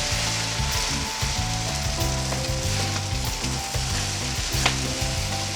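Kway teow noodles, prawns and fish cake sizzling in a hot oiled wok as they are stir-fried, a steady frying hiss, with one sharp clink about four and a half seconds in.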